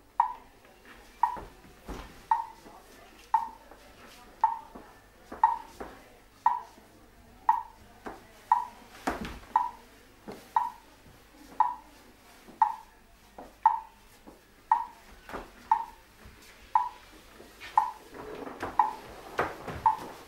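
A short ringing ping at one steady pitch, repeating evenly about once a second. Fainter knocks fall between the pings, and a rustling noise grows near the end.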